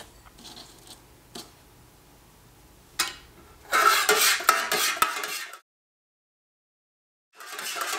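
A spoon stirring melted soy wax and scraping and clinking against the inside of an aluminum candle-pouring pitcher, stirring diamond dye chips in until they dissolve. Two faint clicks come first. The stirring then starts a little past halfway, cuts out completely for about two seconds, and resumes near the end.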